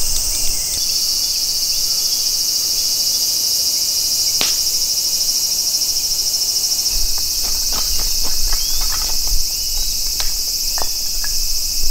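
Loud, steady, high-pitched buzzing of an insect chorus, with a few sharp clicks and crackles from the wood fire scattered through the second half.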